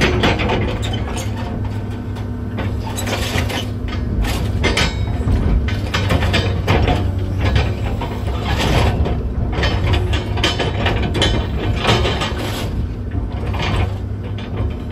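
Komatsu 200 excavator's diesel engine running steadily under irregular clanks, cracks and scraping of house demolition debris being worked by the machine.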